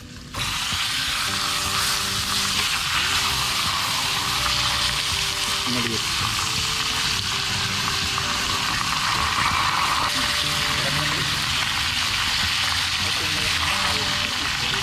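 Milkfish (bangus) frying in hot oil in a small pan on a portable butane stove: a steady, even sizzle that starts abruptly about half a second in as the fish goes into the oil.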